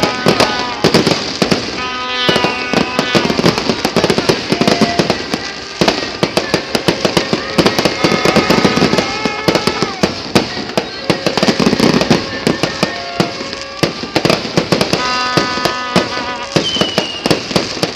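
Fireworks display going off in quick succession: a dense, continuous run of bangs and crackling pops, many a second.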